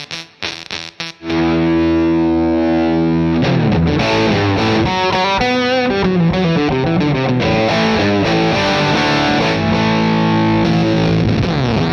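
Electric guitar played through the Earthquaker Devices Gary fuzz and overdrive pedal, heavily distorted. It starts with short, choppy, sputtering notes, then about a second in a chord rings out and is held. After that comes a riff of moving, bending notes.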